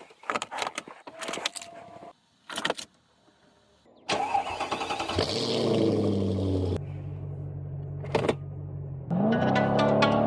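Footsteps and clicks, then about four seconds in a 2002 Mercedes-Benz CL500's 5.0-litre M113 V8 cranks and starts, flaring briefly before settling to a steady idle. Music comes in over the idle near the end.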